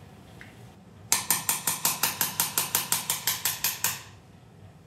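Surgical mallet tapping an instrument in quick, even strokes, about six ringing metallic strikes a second for roughly three seconds, starting about a second in.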